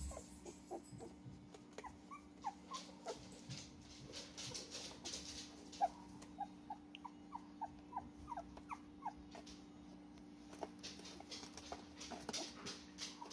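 A two-week-old puppy whimpering in a string of short, high, falling squeaks, with its paws scrabbling and rustling on foam. The owner takes the crying for hunger, the puppy looking for its mother to nurse.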